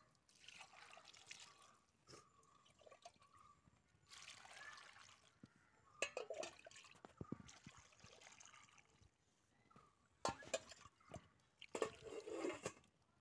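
Water poured from a metal vessel into an aluminium pot of chopped tapioca pieces, splashing and trickling in four separate pours. A few sharp knocks fall between the pours.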